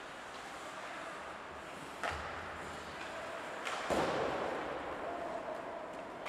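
Ice hockey play in an echoing rink: two sharp knocks, about two seconds and about four seconds in, the second louder and ringing on in the hall, over steady rink noise.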